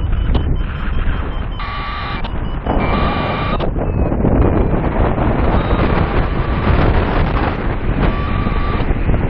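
Wind rushing over the microphone in paraglider flight, with a variometer's high beeping tone cutting in three times in short spells, the sign of climbing in lift.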